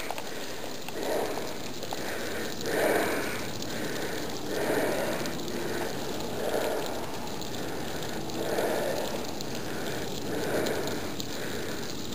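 A person breathing hard and rhythmically close to the microphone, each breath swelling and fading about every two seconds, winded from climbing a steep slope.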